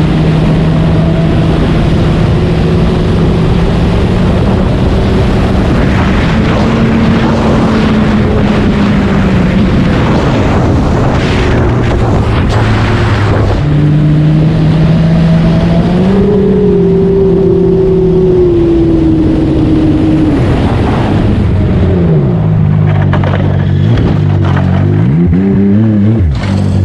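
Snowmobile engine running hard at a steady high speed, with wind noise, as heard from the rider's seat. In the last few seconds its pitch drops and rises several times as the sled slows.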